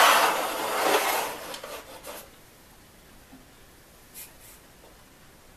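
Disposable aluminium foil roasting pan crinkling and crackling as a raw turkey is turned and shifted in it. The noise fades out about two seconds in, leaving only faint rubbing and a couple of soft ticks.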